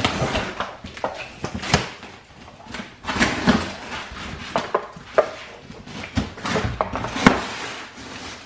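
Cardboard shipping box being opened by hand: packing tape tearing and cardboard flaps scraping and rustling, with irregular sharp crackles and knocks.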